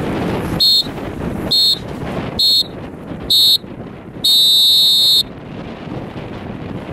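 Sailing-race start countdown signal: four short, high electronic beeps about a second apart, then one long beep about a second long that marks the start. Wind rumbles on the microphone throughout.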